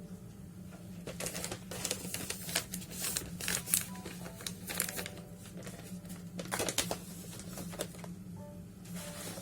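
A run of short crinkling, rustling handling sounds, clustered in the first half and again briefly past the middle, over a steady low hum.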